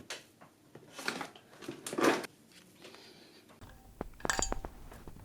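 Small metal tools knocking and scraping against a circuit board in a few separate strokes, then a quick cluster of ringing metallic clinks about four seconds in. A low hum starts shortly before the clinks.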